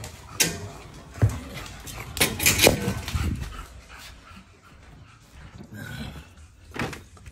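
American bully dogs panting and stirring, with a few sharp knocks and clanks from the metal crates and feeding bowl being handled, the loudest a cluster about two to three seconds in.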